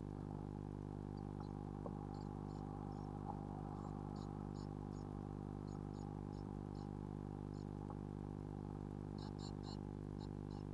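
Blue tit nestlings giving short, high peeps in small clusters every second or two, over a steady low electrical hum.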